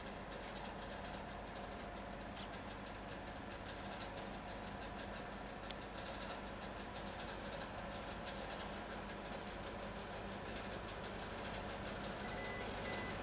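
EP1M AC electric locomotive humming steadily from its traction equipment and cooling fans as it pulls a passenger train slowly out of the station, growing a little louder as it nears. A single sharp click about six seconds in.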